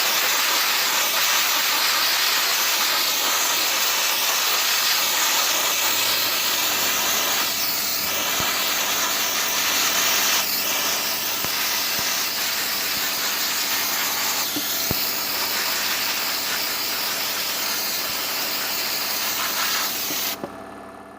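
Steady, loud hiss of compressed air from an air tool, with a faint steady hum joining about six seconds in. The hiss cuts off suddenly near the end.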